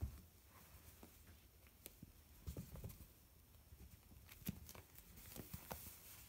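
Faint soft thumps and fabric rustling of a cat scrabbling and rolling inside a fabric cat cave on carpet, with a sharper knock about four and a half seconds in.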